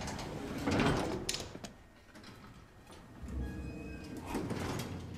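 Elevator sounds from a film scene: the doors sliding, with a few clicks, in the first second, then a low steady hum of the elevator car.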